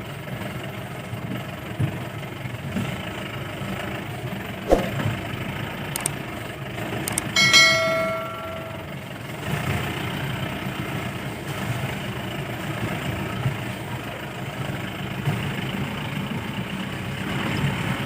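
Mahindra Bolero pickup's diesel engine running steadily under a heavy load on a rough off-road track, with a sharp knock about five seconds in. Midway through comes a loud, brief, bell-like ringing tone, the loudest sound here.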